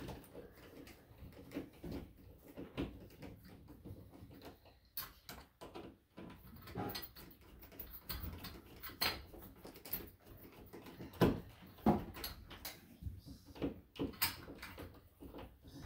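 Handling noise: irregular clicks, taps and rustles as a hanging light fixture's cord, chain and wires are worked loose at a ceiling electrical box, with a few sharper knocks in the second half.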